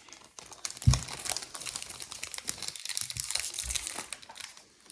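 Foil trading card booster pack wrappers crinkling as they are handled and opened, with dense fine crackling and a single soft thump about a second in.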